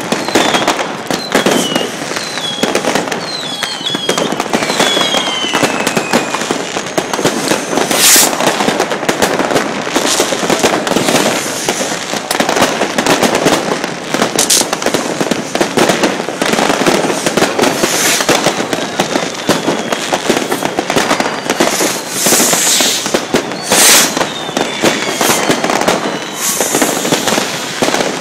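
Fireworks and firecrackers going off without a break, a dense crackle of many small bangs with heavier booms every few seconds. In the first few seconds several whistles slide down in pitch.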